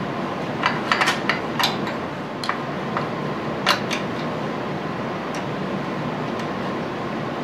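Light metal clicks and clinks of parts and hand tools being handled while fitting a part on a surface grinder: a quick cluster about a second in, then a few single clicks over the next few seconds, over a steady background hiss.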